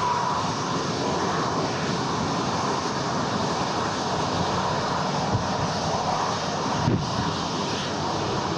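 Jet engines of a Boeing 737 airliner running at taxi power as it rolls past, a steady rushing roar. A short thump sounds about seven seconds in.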